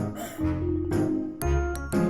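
Background music: a light, bouncy tune with plucked or chiming notes over a steady bass beat.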